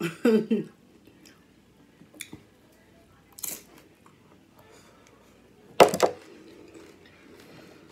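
Eating noises from a mukbang of loaded Flamin' Hot Doritos nachos: a short hum of voice at the start, then two sharp crunch-like noises, one about three and a half seconds in and a louder one about six seconds in.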